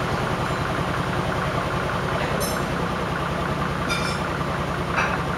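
Miele Navitronic front-loading washing machine running a cottons programme: a steady motor hum and rumble, with a few brief light clicks.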